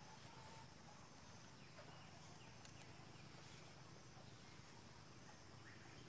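Near silence: faint outdoor ambience with a few faint bird chirps and a couple of soft clicks.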